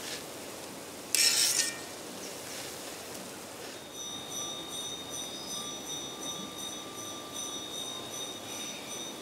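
Dough rings sliding off a wire strainer into hot coconut oil in a kadai and deep-frying with a steady sizzle, with a short louder burst of sizzling about a second in. From about four seconds a faint steady high ringing tone sits over the sizzle.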